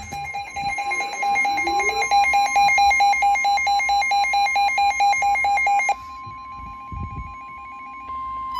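Emergency alert tones: a rapid, loud beeping alarm over a steady high warning tone for about six seconds, after which the beeping stops and the steady tone carries on alone.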